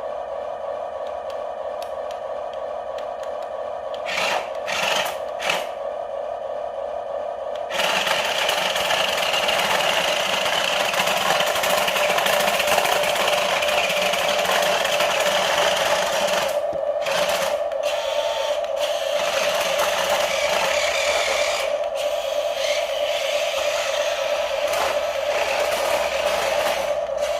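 Small electric gear motors of a Huina 1550 RC excavator whining steadily, with two short surges a few seconds in. About eight seconds in the sound turns louder and rougher and stays that way.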